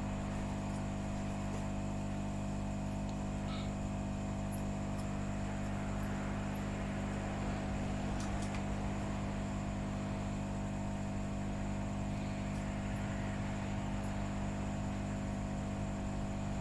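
Steady electrical mains hum with a light hiss from workbench equipment, with a few faint ticks.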